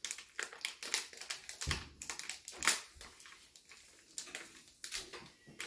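Clear plastic bag of dry cake mix crinkling in many quick crackles as it is squeezed and shaken out over a glass mixing bowl, with one dull knock about one and a half seconds in.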